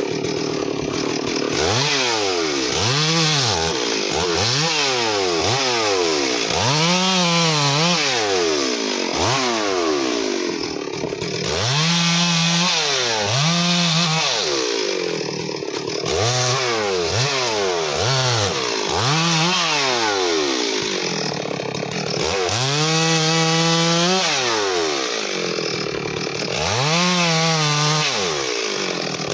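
Stihl MS 382 two-stroke chainsaw revving up and dropping back again and again, in short cuts through the branches of a felled tree. The revs are held high for longer stretches in the second half.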